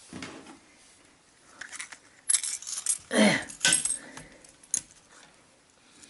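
A plastic sewing kit case being handled and opened, its contents clattering and clicking, busiest from about a second and a half in to four seconds, with one short falling scrape about three seconds in.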